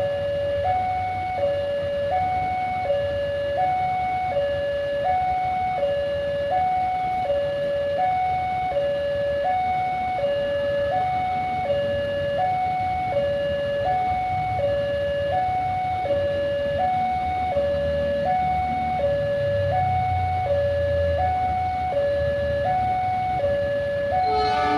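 Two-tone electronic warning alarm alternating steadily between a high and a low tone about twice a second, with a low rumble swelling in the background past the middle.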